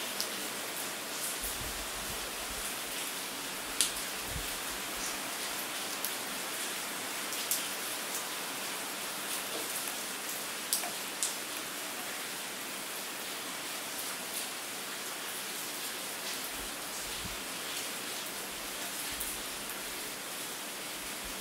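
Steady rain: an even hiss with scattered sharp taps of drops and a few soft low thumps.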